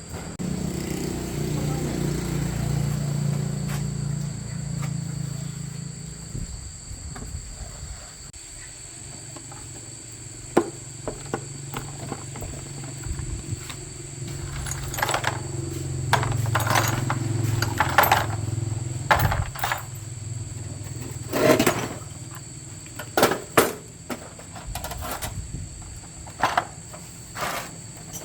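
Insects chirring steadily at a high pitch throughout. A low engine-like hum swells and fades twice, and from about halfway through there are scattered sharp knocks and clanks.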